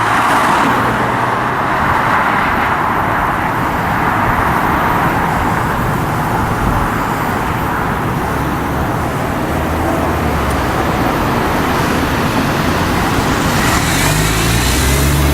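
Steady, loud freeway traffic noise, a continuous rush of cars passing. A lower engine hum from a heavier vehicle comes in near the end.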